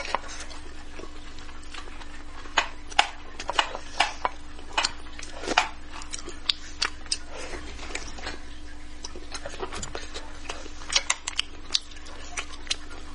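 Close-miked eating of spicy braised carp: short irregular clicks and wet smacks of chewing, with chopsticks picking at the fish. They come in bunches a few seconds in and again near the end.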